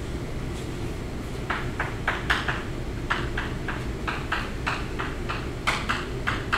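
Chalk writing on a blackboard: an irregular run of short, sharp chalk strokes and taps, starting about a second and a half in, over a steady low room hum.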